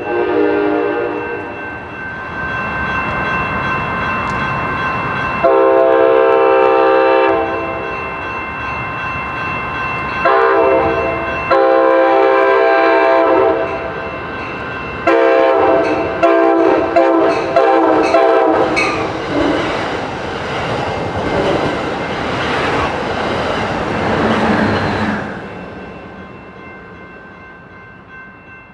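A locomotive's multi-note air horn sounds a series of blasts, long ones and a short one, the last broken into quick stuttering toots. A train then rumbles past and fades away over the last few seconds.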